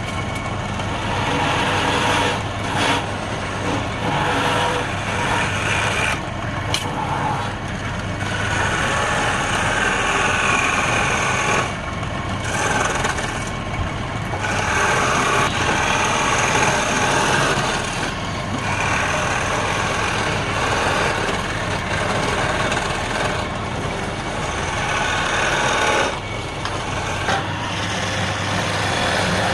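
Wood lathe running with a steady hum while a turning tool cuts the spinning wood. The cutting noise swells and eases, dropping off briefly several times as the tool is lifted.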